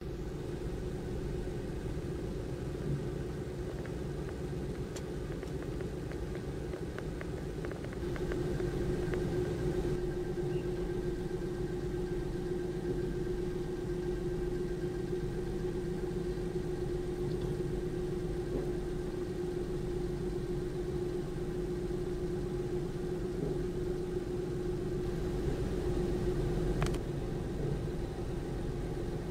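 Steady drone of idling engines and machinery, with a constant humming tone. It grows louder about eight seconds in.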